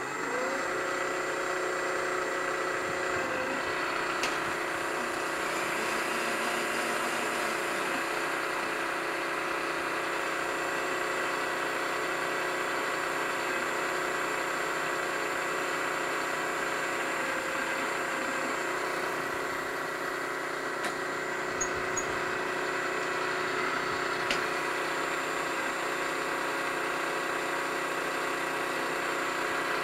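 Milling machine spindle coming up to speed with a brief rising whine, then running steadily while an end mill cuts along the side of a cast aluminium steam-engine base.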